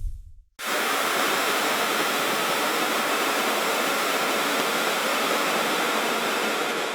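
A steady, even hiss like rushing air or static noise. It cuts in abruptly after a moment of silence, holds level throughout and fades out at the very end.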